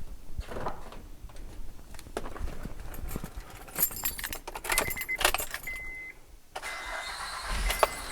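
Car keys jangling and clicking at the ignition of a 1997 Pontiac Grand Prix, with short electronic chime beeps. From about two-thirds of the way through, a steadier running noise takes over.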